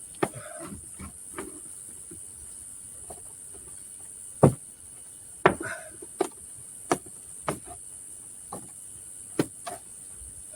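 Irregular sharp knocks and clicks of a plastic car bumper cover being handled and pulled up into place with zip ties, the loudest knock about halfway through, over a steady high hiss.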